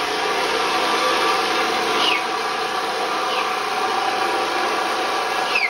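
Electric walk-behind floor scraper running steadily, stripping old vinyl tile off a concrete floor, with a few short descending squeaks.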